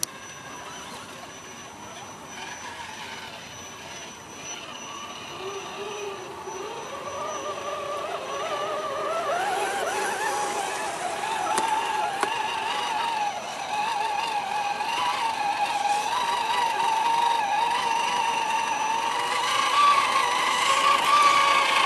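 Electric motors and geared drivetrains of several radio-controlled scale crawler trucks whining, the pitch wavering up and down with the throttle as they wade through water. The whine climbs in pitch over the first ten seconds and grows steadily louder throughout.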